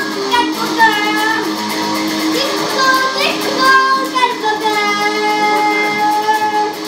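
Punk song played on an electric guitar with a young girl singing into a microphone over it.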